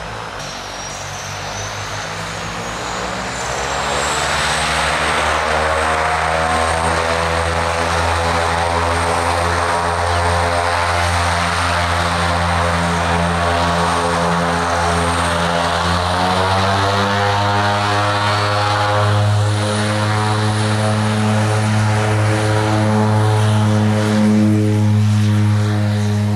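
Propeller airplane's engines running up: a drone with a high whine above it, rising in pitch over the first few seconds, holding steady, then rising again and getting louder about two-thirds of the way through.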